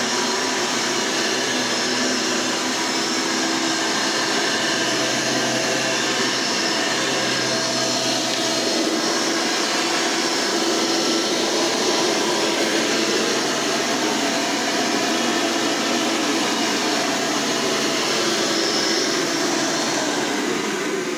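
Hoover Elite upright vacuum cleaner running steadily, its motor starting to wind down at the very end as it is switched off.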